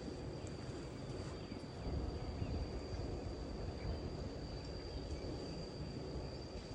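Lakeside ambience: a low, steady rumble of distant road traffic with a thin, steady high-pitched insect drone over it.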